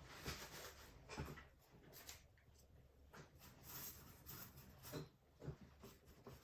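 Faint, irregular scratchy strokes of a paintbrush on canvas.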